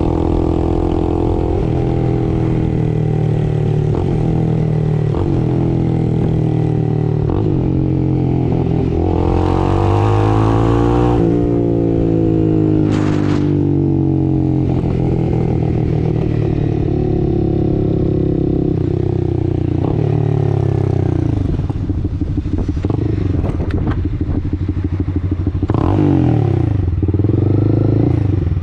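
A 2022 Honda CB300R's single-cylinder engine through a Two Bros Hurricane slip-on exhaust, heard onboard while riding. Its pitch rises and falls as the bike accelerates and slows, with a short rush of noise around ten seconds in.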